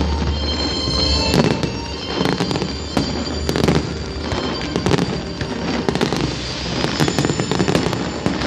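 Fireworks display: a rapid, continuous run of bangs and crackling bursts, many in quick succession.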